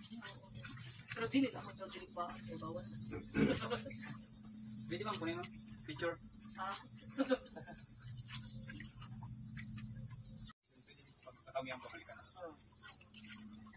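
A loud, steady chorus of insects: a shrill, high, finely pulsing drone. It cuts out for a split second about ten and a half seconds in, then carries on.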